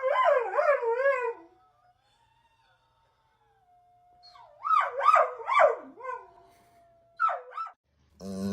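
A dog howling in wavering, rising and falling calls. There are three bouts: one at the start, a longer one around the middle and a short one near the end.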